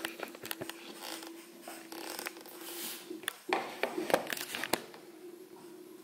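Haier HW80-B14979 front-loading washing machine running at the start of its wash cycle, a faint steady hum under scattered light clicks and taps, with a cluster of louder knocks about three and a half to five seconds in.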